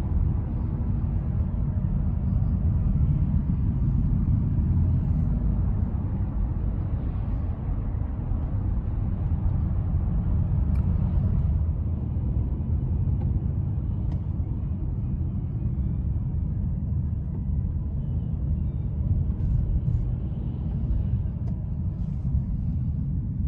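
Car driving at road speed: a steady low rumble of engine and tyre noise heard from inside the cabin.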